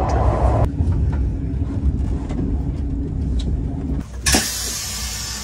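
KTX high-speed train rumbling low as it comes to a stop, heard from the vestibule by the doors; the rumble drops off about a second in. About four seconds in, the doors open with a sudden loud hiss.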